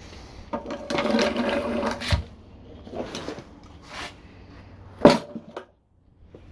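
Rustling and clunking of gear being handled and set down, with a sharp knock about five seconds in.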